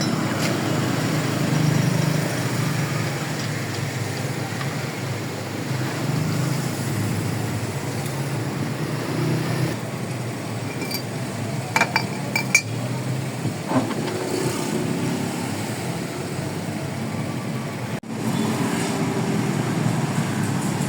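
Steady road traffic noise, with a short cluster of sharp metallic clinks about twelve seconds in and one more shortly after.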